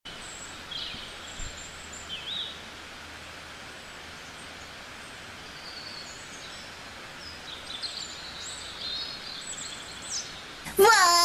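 Nature ambience track: a steady hiss with scattered short bird chirps and whistles. A voice cuts in near the end.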